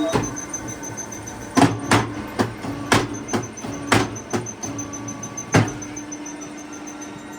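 Brick-making machine running: a steady motor hum with a series of sharp clanks, roughly two a second, that stop about six seconds in, leaving only the hum.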